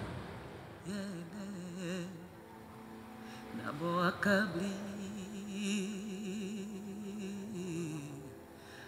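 A woman singing a slow, wordless melody in a low voice: short phrases, a swooping rise about four seconds in, then a long note held with a wavering vibrato that fades near the end.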